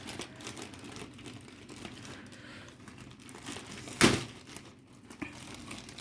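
Parcel packaging crinkling and rustling as it is handled and opened, with one sudden loud crack about four seconds in.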